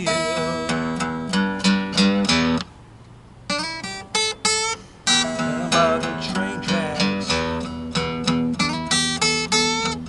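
Acoustic guitar playing a blues instrumental passage of strummed chords and single-note lines. About two and a half seconds in the playing stops for under a second, then comes back as a few short chord stabs before running on.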